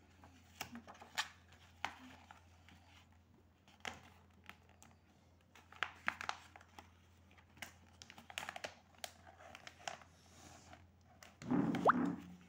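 Paper and handling noise: notebook pages crinkling under the fingers, with scattered small clicks and rustles. Near the end there is a short, louder sound with a low pitched part and a quick rising squeak.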